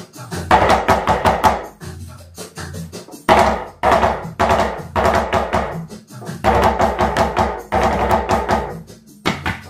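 A gahf, a small hand-held Iraqi frame drum with a skin head, played with the fingers in a quick rhythmic pattern over a recorded southern Iraqi percussion rhythm.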